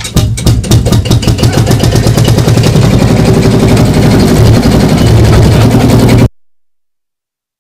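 1953 Field Marshall Series 3A tractor's single-cylinder two-stroke diesel running after being started on the handle: a rapid, even chugging. It cuts off suddenly about six seconds in.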